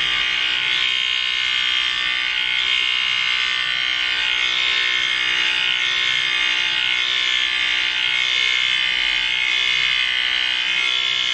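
Electric hair clippers buzzing steadily while cutting off the bulk of long, thick hair.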